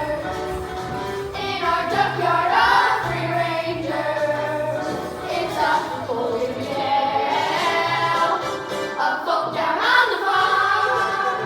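A cast of school children singing a show tune together with instrumental accompaniment, in long held and gliding notes.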